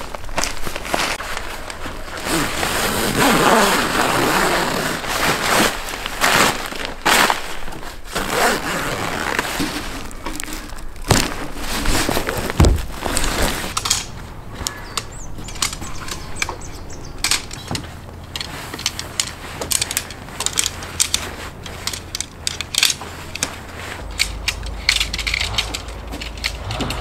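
Nylon dome-tent fabric rustling and crumpling as the tent is struck, with a tent pole sliding out of its sleeve. From about halfway on there are many sharp clicks and clacks as the poles are broken down into their sections, with one dull knock a little before that.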